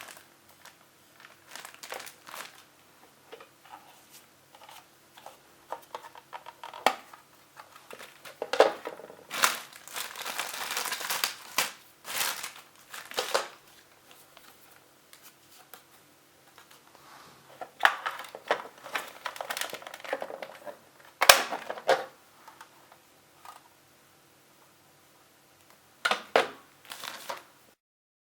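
An iRobot Roomba AeroVac filter and its plastic dust bin being handled: scattered plastic clicks and knocks, with longer stretches of crinkling about ten seconds in and again between about eighteen and twenty-two seconds. A sharp click about twenty-one seconds in is the loudest sound.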